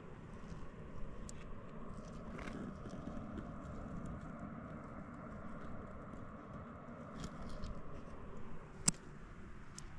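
Loose rock and gravel shifting and clicking, with scattered small ticks of stone and one sharp click near the end.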